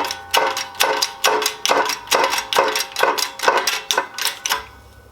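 Rapid metallic clicking, about three strokes a second, from a shop press being worked as it pushes a new bearing onto a transfer case spool. The clicking stops about four and a half seconds in, with the bearing seated, and two more clicks follow.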